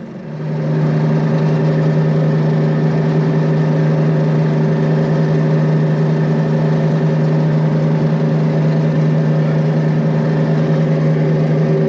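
A large engine running at a steady speed, a constant hum that holds one pitch without revving. It starts abruptly just after the beginning.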